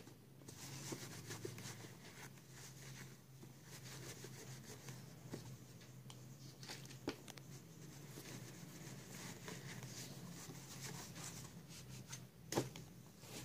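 Faint handling sounds of a metal paint scraper being cleaned with a rag and thinner: light rubbing and small knocks over a low steady hum, with one sharper click near the end.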